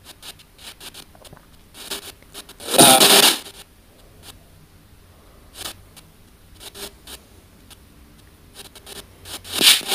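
Handheld ANC-Mini two-channel spirit box sweeping radio frequencies: short clicks and crackly snatches of static. About three seconds in comes a louder half-second burst with a voice-like fragment, which the investigator takes for a spirit saying "around you", and there is another brief burst near the end.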